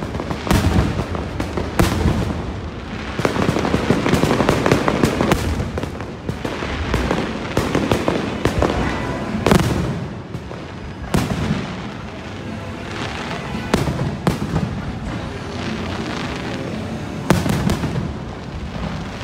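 Aerial fireworks shells bursting in a rapid, continuous barrage of bangs, with crackling stars between the reports.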